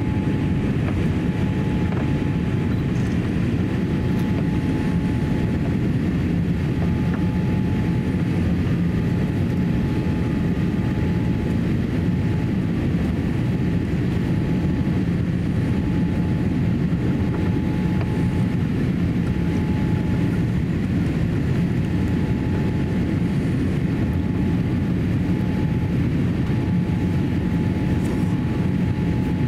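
Steady cabin noise inside a Boeing 787-8 airliner descending toward landing: an even rush of airflow and engine noise, with a faint thin tone that comes and goes.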